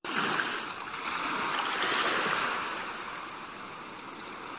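Small lake waves washing onto a stony shore: a steady rushing that swells about two seconds in and then eases.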